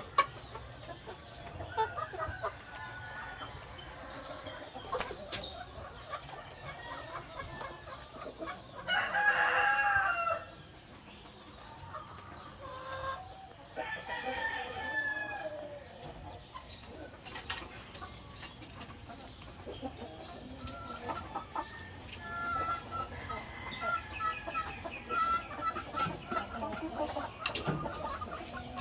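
A flock of chickens clucking as they feed, with a rooster crowing once about nine seconds in, the loudest sound. Near the end there is a run of short, repeated clucks.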